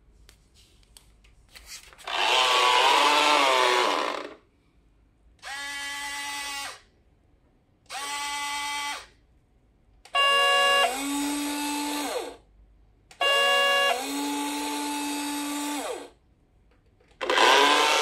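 Drive motor and gears of a 1/32-scale radio-controlled Isuzu Erga bus model whining in six bursts of one to three seconds each, the pitch bending up as the bus starts off and down as it stops.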